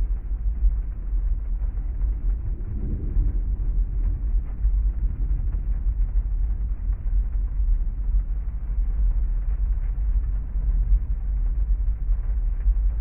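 Heavy rainstorm ambience heard muffled, as if from inside a parked car: a steady deep rumble with no distinct drops. It swells slightly about three seconds in.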